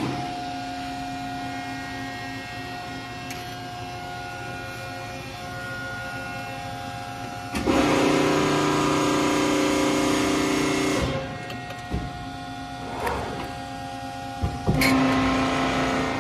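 Hydraulics of a 1996 Accurpress 175-ton CNC press brake working a bend cycle: a steady humming whine, turning much louder and harsher for about three and a half seconds in the middle, then settling back, with a few clicks and another louder spell near the end.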